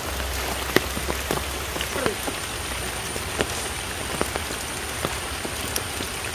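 Steady rain falling on a surface, with single drops ticking sharply here and there.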